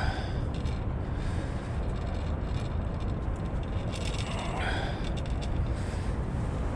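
Steady low outdoor rumble, with a short breathy vocal sound, a gasp or grunt, about four and a half seconds in.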